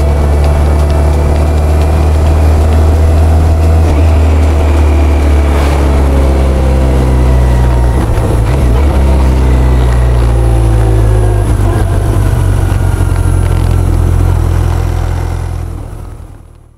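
BMW K1100LT motorcycle's inline four-cylinder engine running steadily while the bike is ridden, its note dipping briefly about eight seconds in. The sound fades out near the end.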